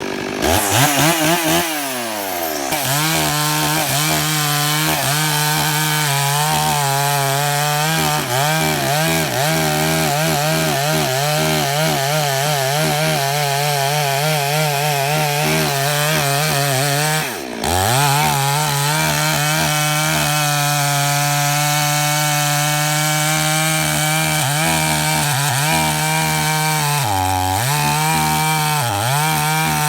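Chainsaw engine running at high speed while cutting wood, its pitch wavering under load. It sags and climbs back in the first couple of seconds, drops briefly about 17 seconds in, and bogs down twice near the end before picking up again.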